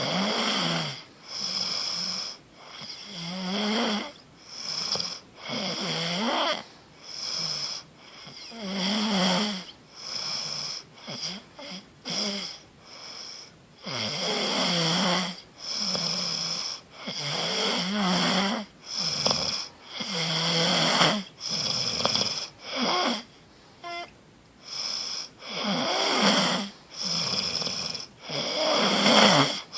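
A person snoring, a rasping snore on breath after breath, about one a second, with a run of shorter, quicker ones near the middle.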